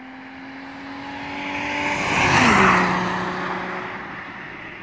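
Audi A4 V6 with its catalytic converter removed driving past at a steady speed: the engine and exhaust note grows louder, drops in pitch as the car goes by about halfway through, then fades away.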